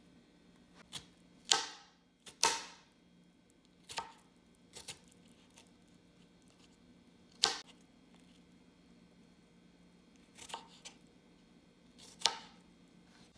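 Kitchen knife slicing through banana and then strawberries and knocking on a bamboo cutting board: about nine separate cuts, spaced irregularly with pauses between them.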